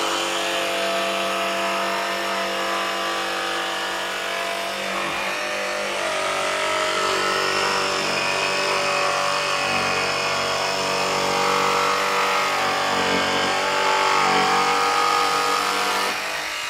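Makita XVJ01Z 18V brushless barrel-grip jigsaw cutting through plywood: a steady, continuous motor whine with the blade sawing, its pitch wavering a little midway.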